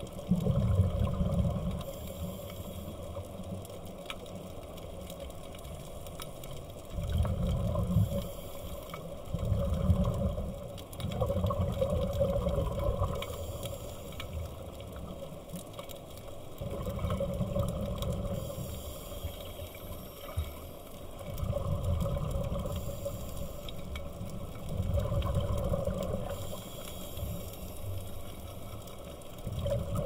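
Underwater recording of scuba regulator exhaust bubbles: low gurgling rumbles that come in bursts of one to two seconds every few seconds, in time with a diver's breathing, over a steady underwater hiss.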